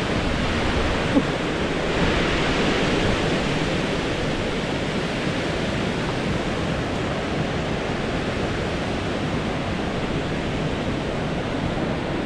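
Steady rush of flowing river water, an even hiss with no breaks. One brief tick about a second in.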